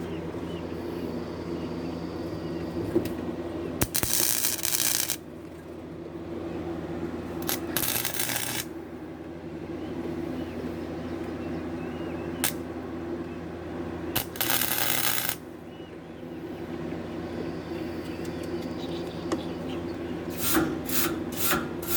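Gasless flux-core wire welder striking short tack welds on steel: three crackling bursts of arc, each about a second long, about 4, 8 and 14 seconds in. A steady hum runs underneath, with a few short clicks and spits near the end.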